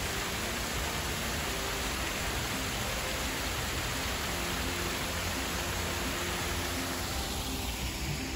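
Small waterfall splashing down tiers of rock: a steady rush of water, its higher hiss easing a little near the end.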